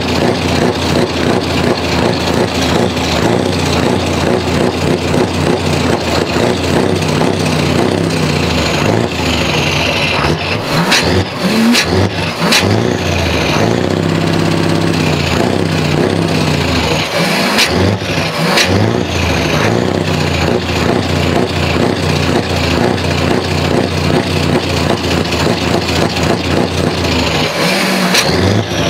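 Scania R500's V8 diesel engine on loud open exhaust pipes, revved up and down repeatedly while the truck stands still, held at a steady rev for a couple of seconds about halfway through. Sharp exhaust-brake cracks come about ten seconds in, again about eighteen seconds in and near the end.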